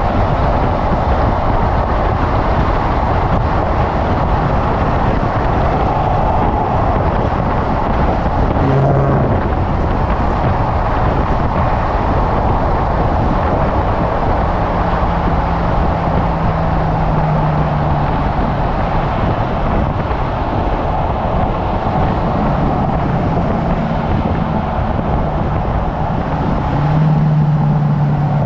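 Car driving at speed on a race track: steady engine, tyre and wind noise, with a low drone rising out of it a few times.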